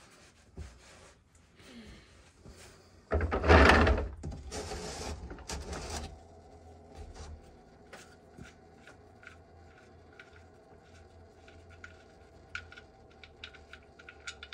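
A loud rubbing, scraping noise lasting about three seconds, then engine oil dripping steadily into a drain pan in small separate plinks.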